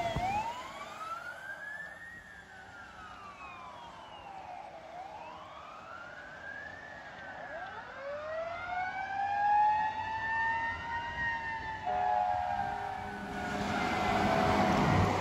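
Fire engine siren wailing in slow rising and falling sweeps, fading as the truck drives away. Road noise from a passing vehicle grows near the end.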